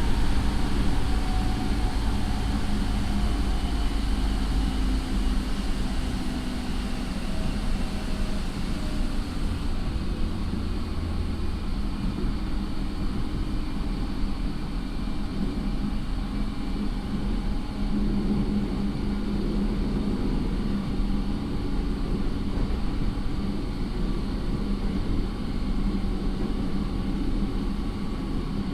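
JR 209 series electric train (IGBT-retrofitted motor car with MT68 traction motors) running, heard from inside the car: a steady rumble of wheels on rail with a faint whine that falls slowly in pitch over the first several seconds.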